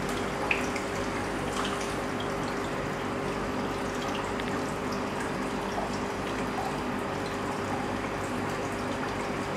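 Aquarium water trickling steadily from the tank's filter, with a steady hum underneath and a few faint drips.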